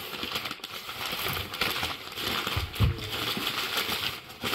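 Packaging crinkling and rustling in uneven bursts with small knocks, as a vacuum cleaner's main hose is handled out of its wrapping.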